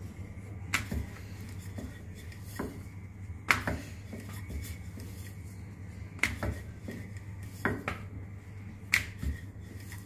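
Wooden rolling pin rolling a thick sheet of dough on a round wooden board, with about five sharp wooden knocks spread through as the pin and board are handled, over a steady low hum.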